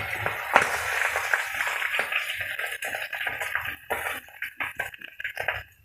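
Milkfish steak frying in hot oil in a wok: a steady sizzle that dies down over the second half, with light clicks of metal tongs against the pan as the half-cooked fish is lifted out.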